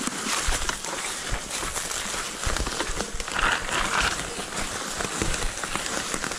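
Mountain bike rolling downhill on a rough trail: tyres crunching over dirt and stones, with many small knocks and rattles from the bike over the bumps.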